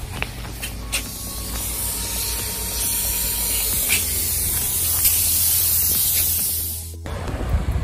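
Steady loud hiss with a low hum underneath and a few sharp clicks; it cuts off abruptly about seven seconds in.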